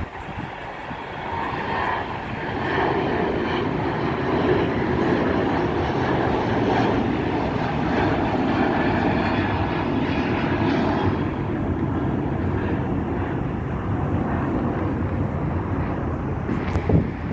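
Jet airliner engines running, a steady noise that swells about two seconds in and holds. A short thump near the end.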